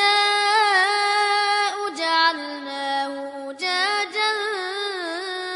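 Melodic Qur'an recitation (murottal) by a single high voice, chanting a verse in long held notes with wavering ornaments, with short breaths about two and three and a half seconds in.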